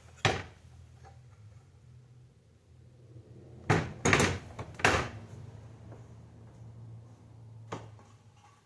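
Sharp knocks and clacks from handling the parts of an opened Xbox Series S: one about a quarter second in, a quick run of four around four seconds in, and one more near the end, over a low steady hum.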